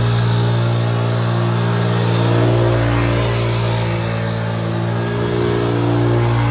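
Can-Am sport quad's single-cylinder engine running at fairly steady revs as the quad circles on concrete, its note rising and dipping only slightly.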